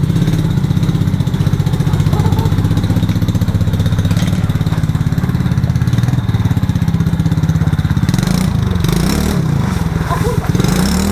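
Small 110 cc ATV's single-cylinder engine running at an even, steady speed, then revving up and down again and again from about eight seconds in as the quad is ridden.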